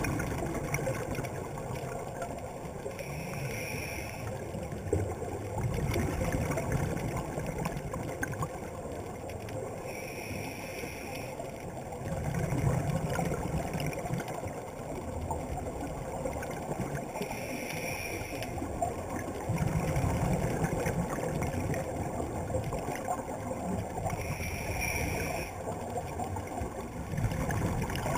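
Scuba regulator breathing heard underwater: a short hiss of inhalation, then a low bubbling rumble of exhaled air, repeating about every seven seconds, four breaths in all.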